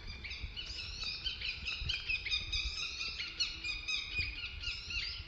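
Several birds chirping and singing at once, a busy run of short overlapping high calls, over a low outdoor rumble.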